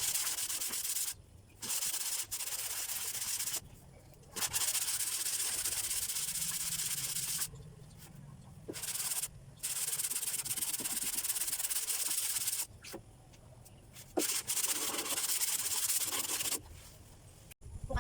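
Sanding of the three-wheeler's bodywork, a rough scraping hiss in stretches of a few seconds with short breaks between them.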